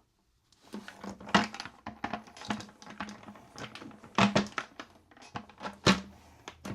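Irregular clicks, clinks and knocks of hard plastic and metal parts being handled and fitted, with a few sharper knocks among them.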